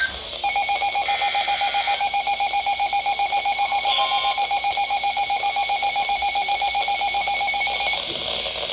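Weather radio alert tone broadcast by NOAA Weather Radio station WXJ73: one steady high-pitched alarm tone with a fast, even flutter. It starts about half a second in and cuts off about a second before the end, after some eight seconds.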